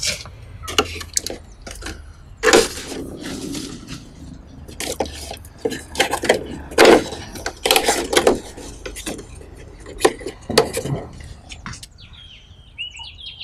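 Aloe vera leaves being handled in a cut-down plastic bottle of water: irregular crackles, clicks and knocks. A few bird chirps come in near the end.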